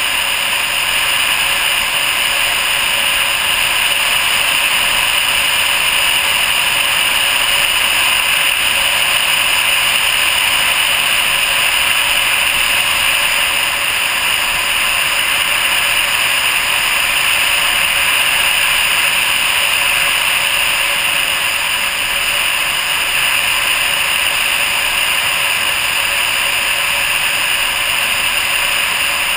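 Steady rush of air over a nose-mounted GoPro on a Slingsby Vega glider in flight: a loud, even hiss strongest in the upper-middle range, with no engine.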